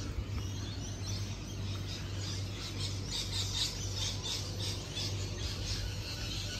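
Many birds calling at once in the surrounding bush: a dense chorus of short, high chirps and squawks that grows busiest in the middle, over a steady low hum.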